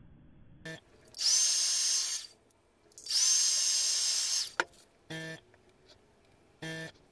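Handheld hot-air blower drying fresh paint, run in two blasts of a second or so each. Each blast opens with a whine that rises as the motor spins up, then cuts off. Two short buzzes follow near the end.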